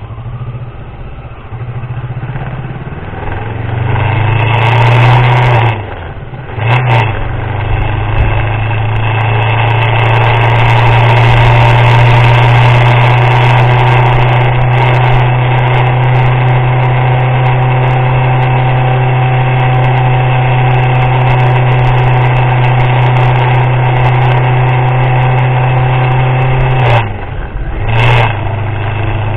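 Motorcycle engine pulling away and accelerating, rising in pitch, with a gear change about six seconds in. It then runs steadily at cruising speed, and the throttle drops off briefly twice near the end.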